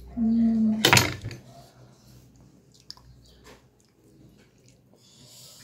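People eating noodles at a table: quiet chewing and small clicks of a fork against a plate, with one sharp clatter about a second in after a short hum.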